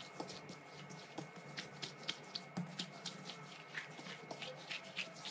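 Hands kneading soft yeast dough on a silicone baking mat: faint, irregular pats and presses, two or three a second.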